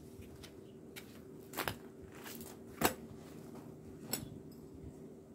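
Tent gear being handled on gravel: a few sharp clacks and knocks, the loudest about three seconds in, over a faint steady hum.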